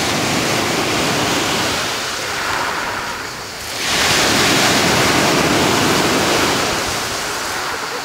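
Black Sea surf breaking and washing up a pebble beach: one surge that fades about three and a half seconds in, then the next wave coming in loudly about a second later.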